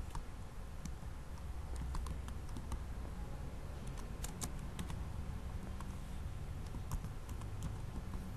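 Computer keyboard being typed on: irregular, separate key clicks as a short word or two is entered, over a low steady hum.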